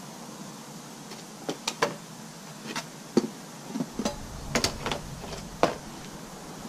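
Scattered light taps and knocks, about a dozen, from a steel square and a sun visor's board core being handled and set down on a sheet of cardboard while a visor outline is marked.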